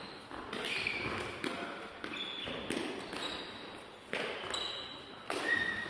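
Kick-shuttlecock rally: the shuttlecock is kicked back and forth with a sharp knock every half second to a second. Short high shoe squeaks on the sports-hall floor run through it, and the big hall makes everything echo.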